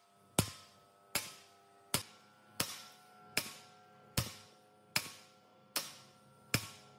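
Hammer blows on metal, a little more than one a second at a slightly uneven pace, each strike leaving the metal ringing.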